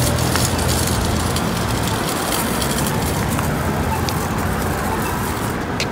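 Street traffic at an intersection: a steady low engine hum under road noise, with a few light clicks.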